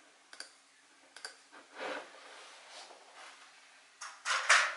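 A few sharp clicks at a computer, then a louder, denser rustle of clicks and noise near the end.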